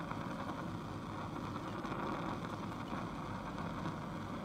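Lab gas burner's blue flame burning with a steady, even rushing noise.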